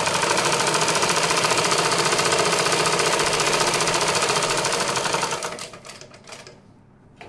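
Usha sewing machine stitching at speed: a rapid, even clatter of the needle and mechanism, slowing and stopping about six seconds in.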